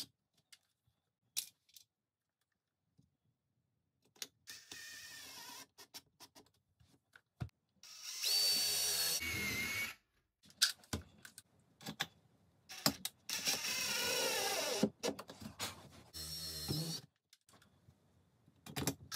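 Cordless drill running in several short bursts with a steady motor whine, drilling holes through a sliding closet door's bottom track, with clicks and knocks of handling between the bursts.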